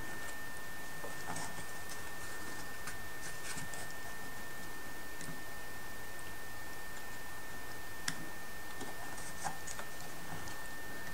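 Light clicks and scratches of fingers and a plastic glue bottle working on a thin wooden model-boat deck, with a sharper click about eight seconds in. A steady high-pitched whine and hiss runs underneath.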